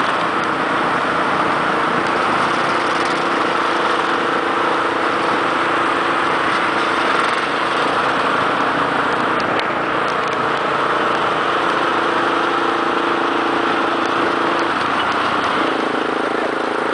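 Yamaha XT660's single-cylinder four-stroke engine running steadily at cruising speed, heard from the handlebars with wind and road noise. The engine note drops about fifteen seconds in as the bike slows.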